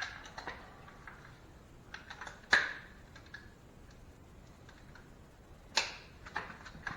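Sparse clicks and clinks of hand tools and sockets being handled, with sharper knocks at the start, about two and a half seconds in and near six seconds.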